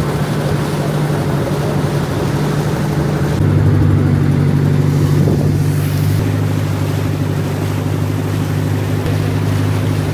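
Small engine running steadily with a low hum; about three and a half seconds in its note changes and it gets a little louder.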